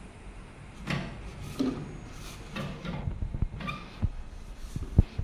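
Knocks and clunks of a liquid filling machine's nozzle head being lowered on its steel pillars by its handle: a string of separate knocks, the loudest a sharp deep thump about five seconds in.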